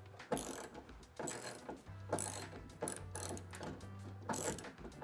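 Hand ratchet clicking in repeated short strokes, about one a second, as it loosens the rear wing's mounting bolts.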